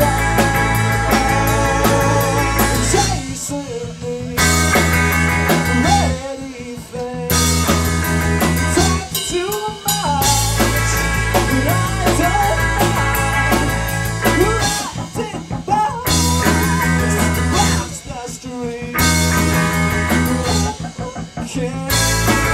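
Live rock band playing a song, with drums, bass and guitar. The full band stops short several times for brief breaks, leaving only a thin melodic line, before crashing back in.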